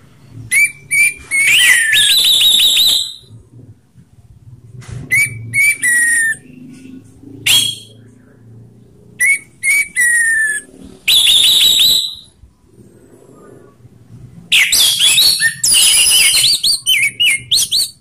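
Orange-headed thrush (anis merah) singing its loud 'ngeplong' song: about six bursts of rapid whistled and chattering phrases with gliding notes, separated by short pauses, the longest burst near the end.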